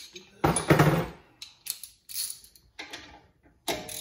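Metal hand tools clattering and clicking as they are handled: one loud clatter about half a second in, then several shorter knocks and clicks.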